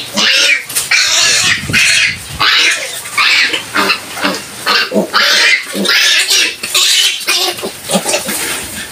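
Five-day-old Large White piglets squealing over and over in the farrowing pen, about two high, shrill squeals a second.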